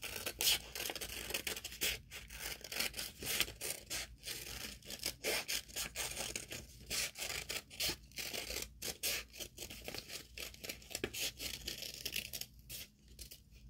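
Scissors cutting through folded construction paper along a curve: a long run of irregular snips with the paper rustling in the hand.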